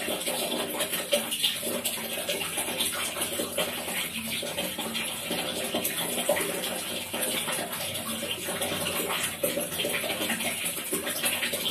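Water falling and splashing steadily into a large plastic tub, a dense continuous splashing with no pauses.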